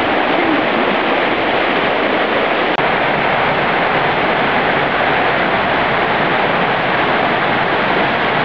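Loud, steady rushing of a fast, swollen whitewater river through rapids. The sound cuts out for an instant about three seconds in.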